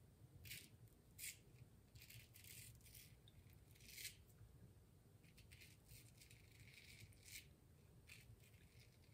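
Faint rasp of a razor blade scraping stubble through shaving lather in a series of short strokes.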